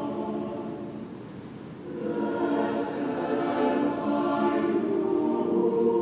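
Mixed choir singing slow, sustained chords. A held chord fades about a second in, then the choir comes in louder about two seconds in on a new phrase, "Blessed are you among women."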